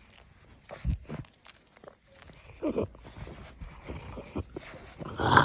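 Pug snuffling and snorting in a string of short noisy breaths, with a brief grumble falling in pitch about two and a half seconds in and a louder snort near the end.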